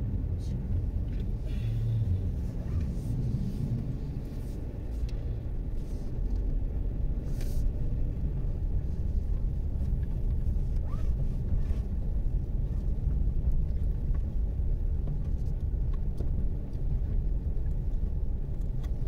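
Haval Jolion driving, heard from inside the cabin: a steady low rumble of engine and road noise that gets a little louder about six seconds in, with a few faint clicks.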